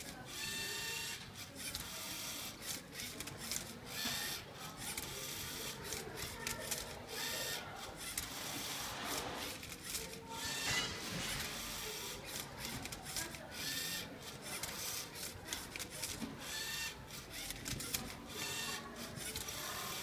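LEGO Mindstorms Rubik's-cube-solving robot at work: its motors whir and the cube clacks and knocks again and again as the arms flip it and turn its layers.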